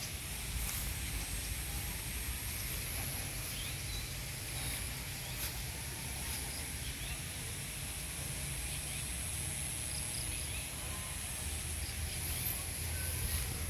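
Outdoor ambience: a steady high insect drone with a few short bird chirps over a low rumble.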